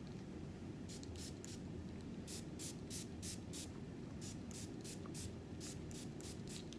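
Fine-mist spray bottle of curl refresher misting hair: about fifteen short, quick sprays in three runs, the last and longest run coming several sprays a second. A steady low hum runs underneath.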